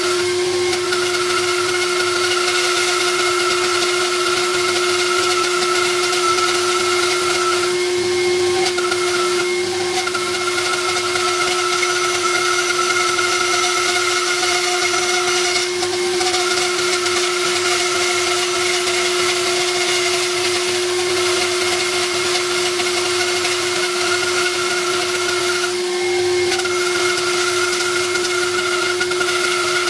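Jointer (surface planer) running steadily, a high whine over the spinning cutterhead, as a board's edge is fed across it along the fence. The higher part of the whine breaks off briefly a few times, about 8, 10, 16 and 26 seconds in.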